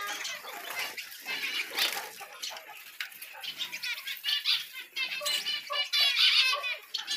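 A flock of small aviary birds chirping and twittering, with many quick high chirps overlapping. The chirping grows thicker near the end.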